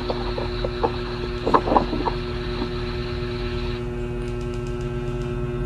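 A steady low hum with constant pitched tones, and a few faint murmurs of a voice about a second and a half in.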